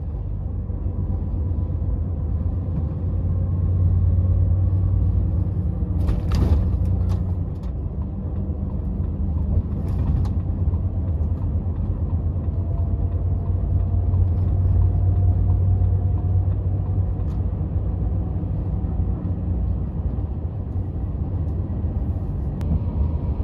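Volvo FH 460 truck's 13-litre straight-six diesel engine and road noise heard inside the cab, a steady low rumble as the truck picks up speed, with a few brief clicks about six and ten seconds in.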